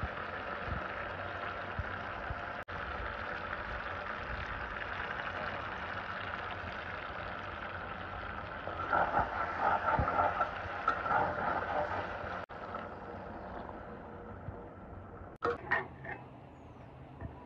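Tengra fish curry with tomato simmering in a pan, a steady sizzling, bubbling hiss that grows louder and pulses for a couple of seconds about halfway through, with a few brief sharper sounds near the end.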